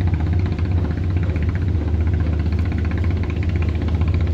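Boat engine running steadily, a deep hum with a fast, even throb.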